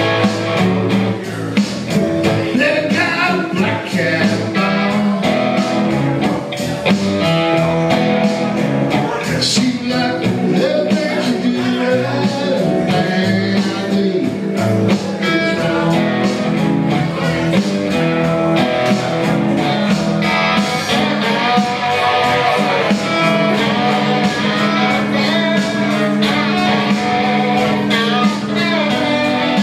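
Blues-rock song: a guitar played over a backing band with bass and drums, a man singing over it at times.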